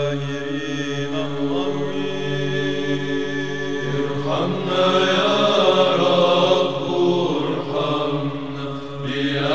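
Background music of chanted voices holding long notes over a steady low drone; the singing shifts and grows fuller about four seconds in.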